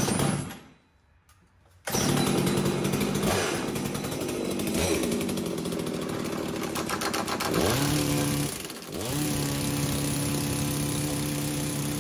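Farmertec G660 chainsaw engine (a Stihl MS660 clone) driving a Racine railway impact wrench at high revs, the hammer rattling rapidly on a 1-inch grade 8 bolt. It starts with a brief loud burst, then about two seconds in runs loud and continuous. Near the end the engine speed dips and climbs back twice, then holds steady.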